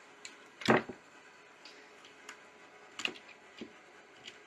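Handling noise from an electric motor's metal case being moved and taken apart on a workbench: one sharp knock a little under a second in, then a few lighter clicks and taps.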